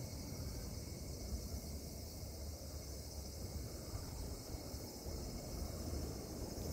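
Steady high-pitched chorus of insects, over an uneven low rumble.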